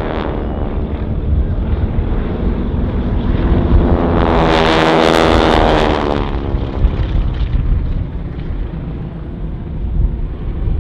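A formation of North American Harvard trainers flying over, their Pratt & Whitney R-1340 nine-cylinder radial engines and propellers droning together. The sound swells to its loudest as they pass about four to six seconds in, sliding in pitch, then fades away, with wind rumbling on the microphone throughout.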